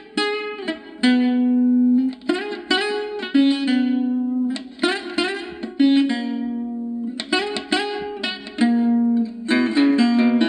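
Solo guitar improvisation on a vintage guitar: picked notes and short chords in phrases, each left to ring and die away. The playing gets busier about nine and a half seconds in.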